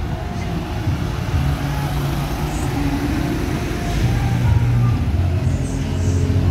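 Engines of parade float vehicles running as they go by, a steady sound centred low that grows a little louder about two-thirds of the way through.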